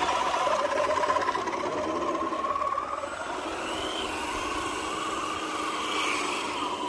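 Electric motors and gearboxes of radio-controlled scale crawler trucks whining as they drive, the pitch rising and falling with the throttle.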